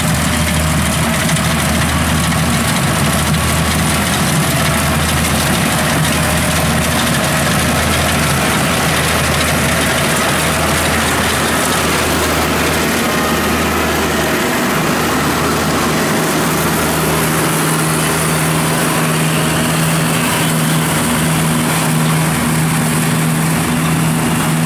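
Kubota DC70 combine harvester running steadily as it cuts and threshes rice: a continuous low diesel engine drone with machinery noise over it.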